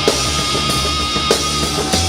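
Rock music: a band recording with a drum kit and held, sustained chords.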